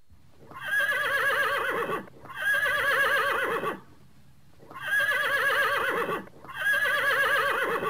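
Horse whinnying four times in two close pairs, each call about a second and a half long with a rapidly quavering pitch.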